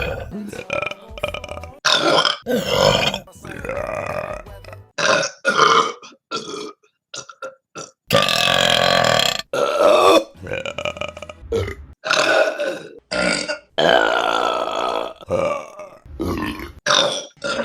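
Women burping, one burp after another in quick succession, about twenty in all, each cut off sharply as the next begins. Most are short; a couple are long, drawn-out belches of about a second and a half.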